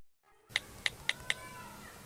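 Four quick, sharp clicks over faint background noise, with a faint wavering tone in between.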